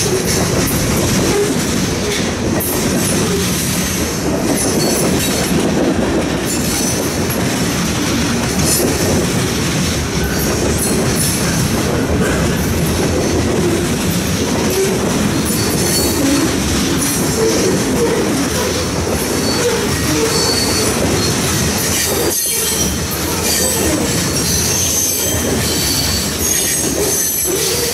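Freight cars rolling past close by: a steady rumble of steel wheels on rail, with a thin, high wheel squeal over it.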